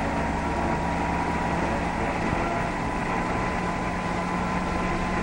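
Military helicopter running steadily: an even engine drone with a constant whine over it.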